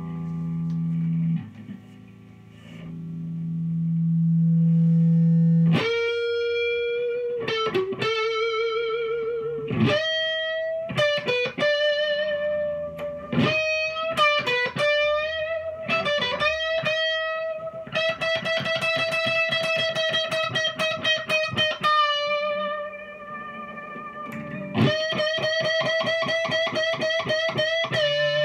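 1962 Framus New Sound semi-hollow electric guitar, amplified, playing an improvised single-note line. A low held note swells up over the first few seconds, then a melody with vibrato follows, and in the second half there are runs of rapidly repeated picked notes.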